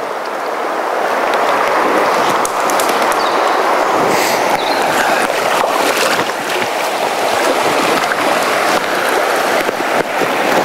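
Fast river current rushing steadily over a shallow, rippled riffle.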